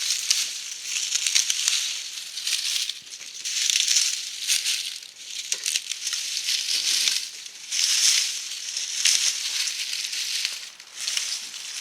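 Snow shovel scraping and scooping snow, a rough crunching scrape repeated every second or so.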